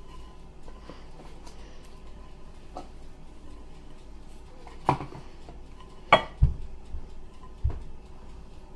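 Spatula and utensils knocking against glass mixing bowls while cornbread batter is scraped out: four sharp clinks in the second half, the loudest about six seconds in.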